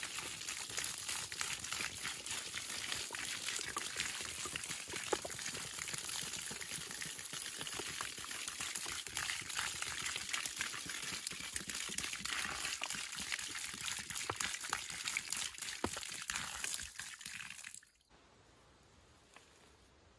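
A steady stream of water poured from above, running down the bark of a tree trunk and splattering onto loose dirt at its base. It stops abruptly near the end.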